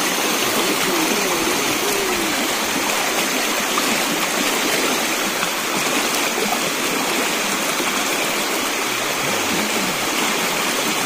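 Fast, shallow river rushing over rocks: a steady, even wash of running water.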